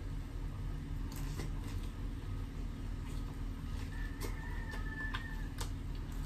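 A rooster crows faintly about four seconds in, one held call lasting about a second and a half. A steady low hum runs underneath, with a few short crisp crunches of fried chicken being bitten.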